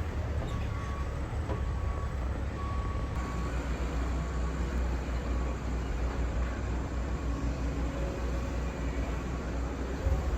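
Heavy construction machinery running with a low, steady engine rumble, while a reversing alarm beeps about once a second through the first few seconds and then fades out.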